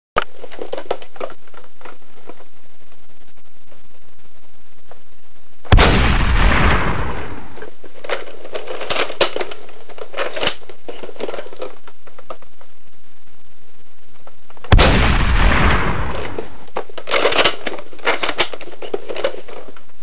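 Two loud gunshot sound effects about nine seconds apart, each ringing out for a second or two, then a run of sharp mechanical clicks like a gun being cycled or reloaded, all over a steady hiss.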